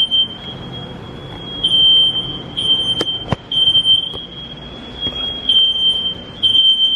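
Smoke alarm sound played as a prank: a shrill, piercing tone that goes on and on, swelling into louder beeps about every second. Two sharp clicks come about three seconds in.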